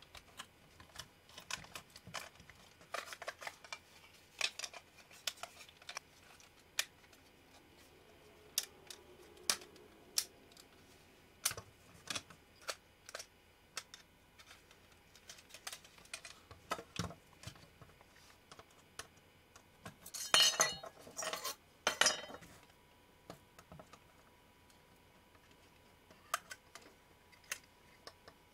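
Small plastic and metal clicks and taps of a JVC GR-D725 miniDV camcorder being taken apart by hand: a small screwdriver on screws, case panels coming off and parts set down on a wooden table. Partway through there is a louder, denser clatter lasting about two seconds.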